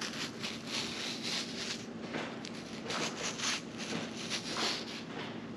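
Fingers rubbing a strip of spiny dogfish skin close to the microphone, making repeated scratchy rasping strokes. The shark's skin is rough like sandpaper.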